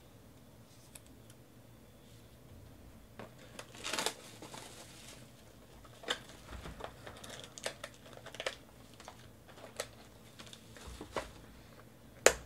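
Plastic shrink-wrap crinkling as a cardboard trading-card box is unwrapped and handled: a rustle about four seconds in, then scattered light clicks and taps, with a sharp snap near the end.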